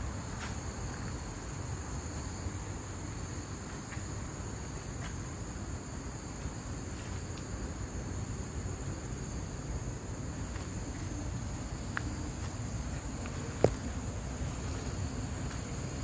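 Steady high-pitched drone of insects in chorus over a constant low rumble, with scattered faint ticks and one sharp click a little over three-quarters of the way through.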